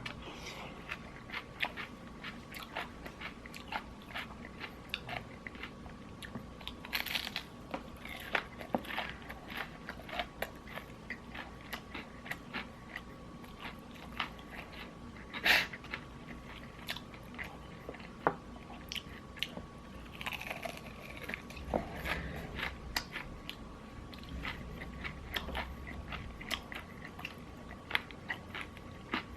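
A person biting into and chewing crispy fried chicken close to the microphone: steady crunching and crackling of the breaded skin, with a sharper crunch about halfway through.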